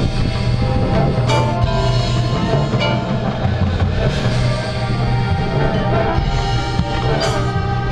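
Marching band playing its field show: sustained brass chords over drums, with a few cymbal crashes.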